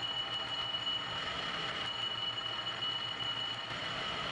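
South Bend metal lathe running during a thread-cutting pass: steady machine noise with a constant high whine.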